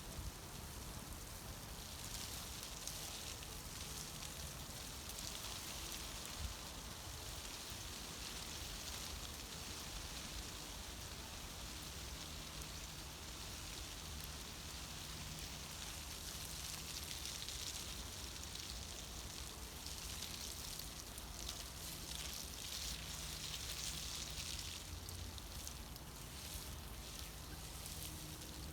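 Wood campfire burning, a steady hiss with many small crackles and pops that swells and fades.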